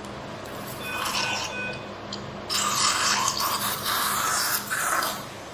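A harsh rasping, scraping noise for about two and a half seconds in the second half, over a low steady hum, with a shorter, fainter scrape about a second in.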